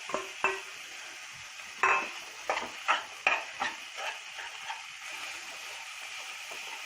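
A spoon scraping and knocking around a kadhai as khoya is stirred into semolina frying in ghee: a run of stirring strokes over the first four seconds, then a steady sizzle.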